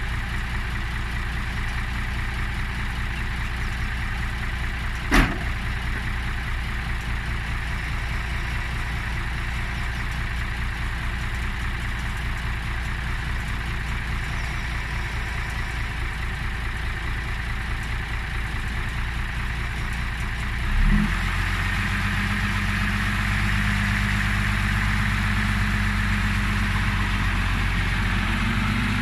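Heavy vehicle's engine running steadily at idle, with a single sharp click about five seconds in. About two-thirds of the way through there is a knock and the engine note steps up to a higher, steady speed.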